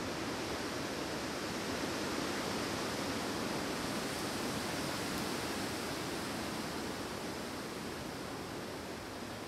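Wind blowing through forest trees: a steady, even rushing of branches and foliage that eases a little near the end.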